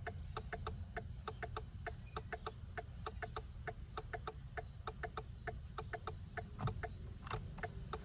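Turn-signal indicator ticking in the cabin of a 2017 Ford Mustang with LED turn bulbs fitted, a fast, even tick-tock of about three on-off pairs a second, a rate the owner thinks could be normal. A light thump comes near the end.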